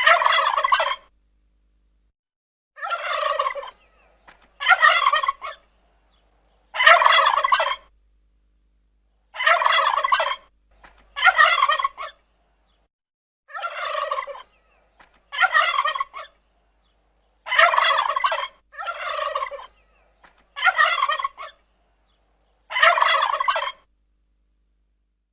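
A turkey gobbling about a dozen times. Each gobble is a rapid, rattling call of about a second, separated by silent gaps of one to two seconds.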